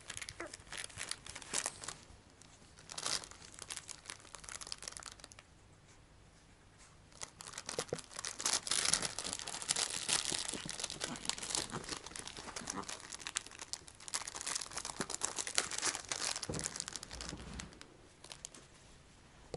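A small dog biting and chewing at a stiff plastic package, crinkling and crackling the plastic in irregular bursts. It is busiest from about seven seconds in until near the end, with a short lull before that.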